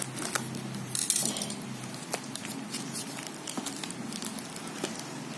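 Scissors snipping clear plastic packing tape over a sheet of cardboard, with a louder rasp about a second in, then the tape crinkling and the cardboard crackling as a hand presses the tape down.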